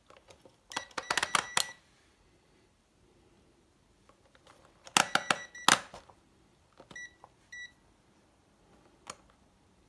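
Rotary function dial of a Habotest HT118A digital multimeter clicking through its positions, with the meter beeping as it is turned: two runs of clicks and beeps about a second in and about five seconds in, two short beeps around seven seconds, and a single click near the end.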